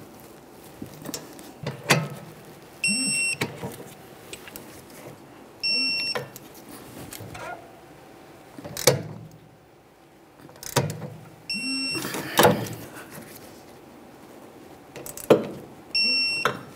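Torque wrench tightening brake caliper bolts: sharp metallic clicks and four short high electronic beeps, each about half a second long, the signal of the set torque or angle being reached.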